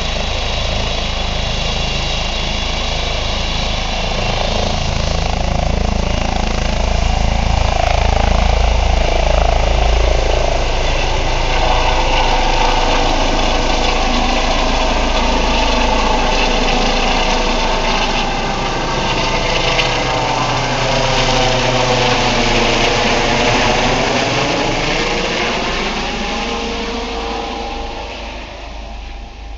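Eurocopter EC135 twin-turbine helicopter lifting off and climbing away: steady rotor and turbine noise with sweeping, shifting tones as it passes overhead, fading as it flies off near the end.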